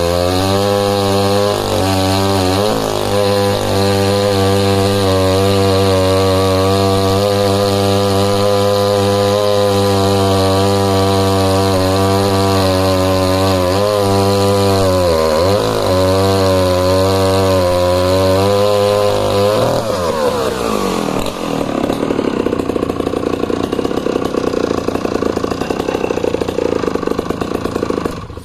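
Danarm DDA110 110 cc vintage two-stroke chainsaw cutting at full throttle with the bar buried, holding its revs under load apart from brief dips about 2–3 s and 15 s in. About 20 s in the steady engine note breaks up into a rougher sound. It cuts off right at the end.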